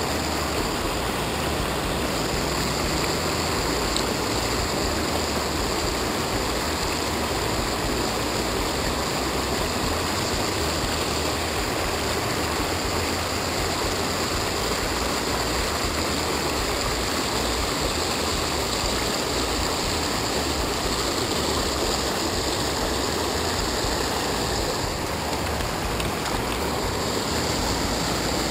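River water pouring over a low weir and rushing between rocks: a steady, unbroken rushing that stays level throughout.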